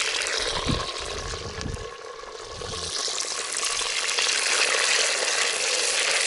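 Wood campfire crackling and hissing under a hanging cooking pot, a few low rumbles in the first three seconds, the fire getting louder after that.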